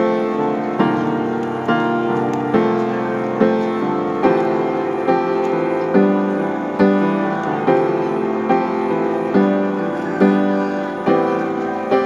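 Background piano music, a new note or chord struck a little more than once a second, each fading before the next.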